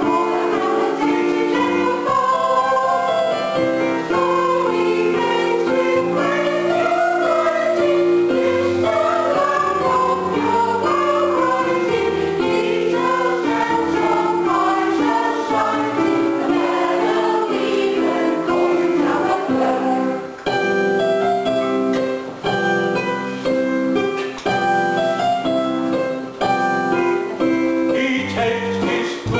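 Stage chorus, mostly women's voices, singing a musical-theatre number together with electronic keyboard accompaniment. About two-thirds of the way through, the phrases turn short and clipped.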